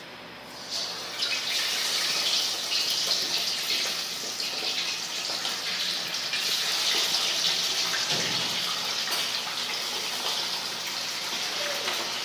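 Seasoned catfish pieces going into a pot of hot canola oil, the oil sizzling loudly. The sizzle starts suddenly about a second in and stays strong, with small crackles, as more pieces go in.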